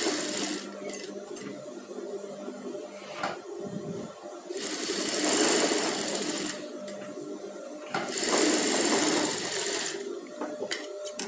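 Industrial sewing machine stitching a blouse piece to its lining. It runs in two spells of about two seconds each, starting about four and a half seconds in and again about eight seconds in.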